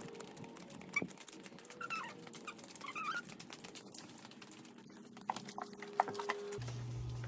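A dog whining in a few short, high, rising and falling calls, with scattered light clicks; a low steady hum comes in near the end.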